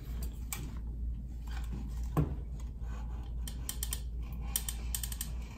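Caulk gun clicking as its trigger is squeezed to push out a thin bead of caulk, with sharp clicks now and then and a quick cluster of them near the end, over a steady low hum.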